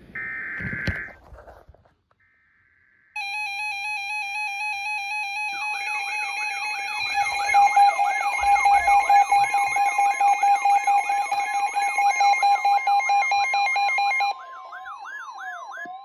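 Several weather alert radios sounding their alarms together for a severe thunderstorm warning: a rapid pulsing beep starts about three seconds in, joined a couple of seconds later by a warbling tone that sweeps up and down about twice a second. The beeping stops near the end while the warble carries on.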